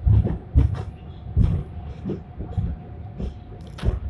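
Hong Kong's Peak Tram, a 1989 fifth-generation cable-hauled funicular car, heard from inside as it climbs. It rumbles along the track with irregular knocks and rattles about every half second to second, over a faint steady whine.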